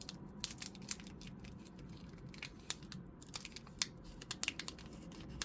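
Foil Pokémon TCG booster pack wrapper crinkling and tearing as it is opened by hand, an irregular patter of small crackles.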